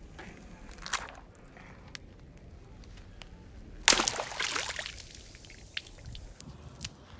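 A large water balloon squeezed by hand bursts about four seconds in: a sudden pop and a splash of water onto concrete that dies away over about a second.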